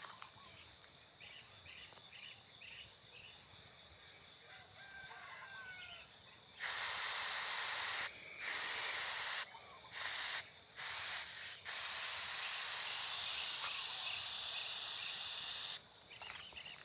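Handheld pump pressure sprayer spraying a fine mist. A loud hiss starts about six and a half seconds in and comes in several bursts with short breaks, then stops near the end.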